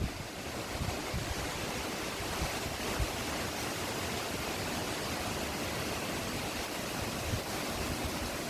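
Strong wind blowing in a steady rushing noise, with low rumbling wind buffeting on the microphone.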